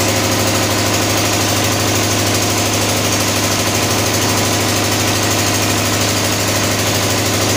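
Four-stroke single-cylinder diesel engine of a test rig running steadily, its rapid, even firing beat unchanged throughout.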